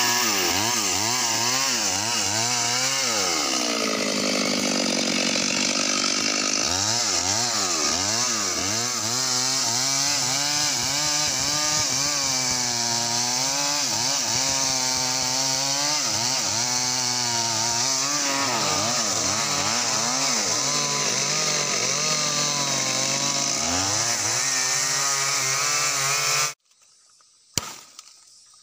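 Stihl two-stroke chainsaw running at high revs while ripping a log lengthwise into planks, its engine pitch rising and falling as the chain works through the wood. The sound stops abruptly near the end.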